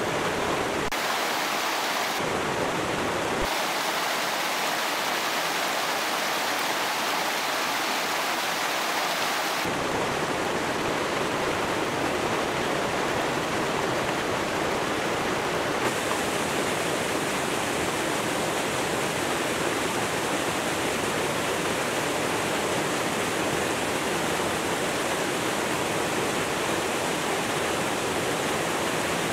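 Steady rush of a rocky river flowing over boulders. Its tone shifts abruptly several times in the first sixteen seconds.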